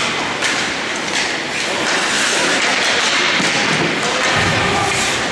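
Ice hockey play in an arena: irregular thuds and taps of puck, sticks and players against the boards over a steady hiss of skates on ice.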